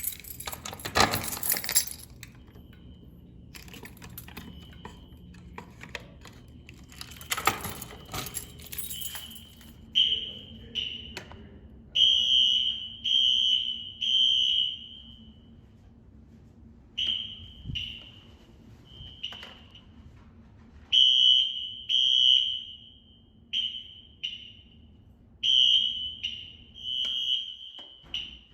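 Fire alarm horn sounding a high tone in uneven blasts of roughly half a second to a second from about ten seconds in, the stuttering pattern typical of Wheelock NS horns glitching under a Simplex 4100ES panel's smart-sync walk-test commands. Two loud bursts of rustling or handling noise come before it, one at the start and one a few seconds later.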